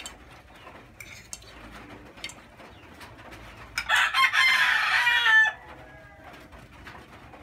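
A rooster crows once about four seconds in, a loud call of under two seconds whose pitch falls at the end. Before it there are a few light clinks of a fork on a plate.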